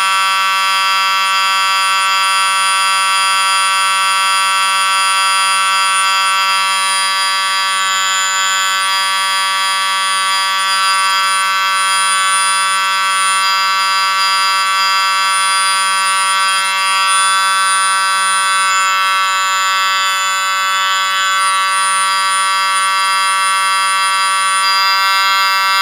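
A loud, steady electronic drone made of many high sustained tones sounding together, alarm-like and unchanging, played as a 'hypnotic sound'.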